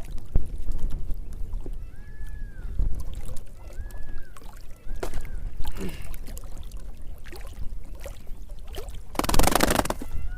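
Water sloshing and splashing around someone wading or handling gear in the water, with a loud splash about nine seconds in. A few short arching whistled calls come through over the water noise.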